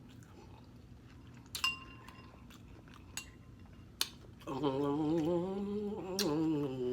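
A metal spoon clinking against a cereal bowl, a few light clinks with a brief ring, then a person humming with a wavering pitch through the last two seconds or so.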